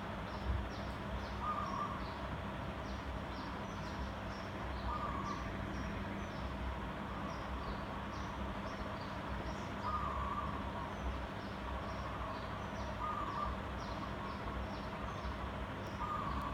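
Sunwindy 56-inch ceiling fan running with a steady motor hum and air noise. Birds chirp in short high notes throughout.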